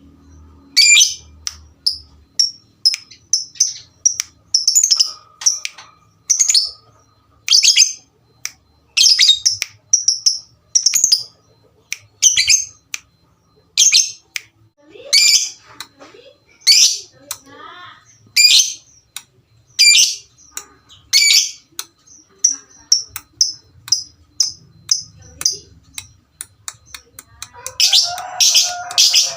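Lovebirds chirping: loud, shrill chirps about once a second, with fast ticking trills in between, and a denser run of calls near the end.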